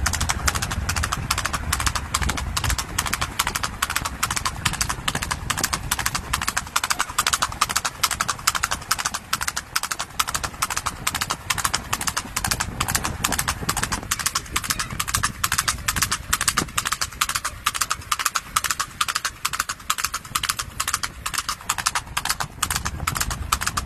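A horse's hooves striking asphalt at a gallop: a fast, steady clatter of hoofbeats.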